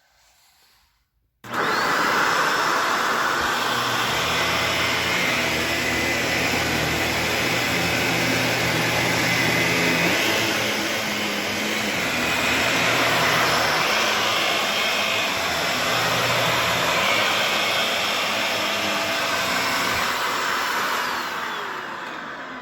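Shark Navigator Lift-Away upright vacuum cleaner switched on about a second and a half in, its motor whine rising and then running steadily while it vacuums carpet, likely picking up the dirt just dumped there. Near the end it is switched off and the whine falls away as the motor spins down.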